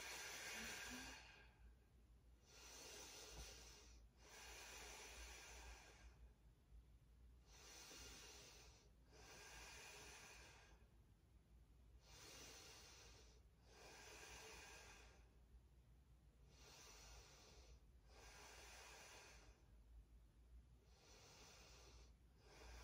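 A woman breathing slowly and deeply, faint: about five breaths, each a short soft inhale followed almost at once by a longer exhale, then a pause of about two seconds. These are resting breaths that are slowing down after exertion.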